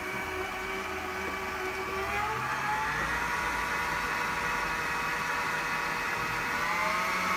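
Stand mixer's motor running while it kneads brioche dough, with a steady whine. The pitch rises about two seconds in and again near the end as the speed is turned up.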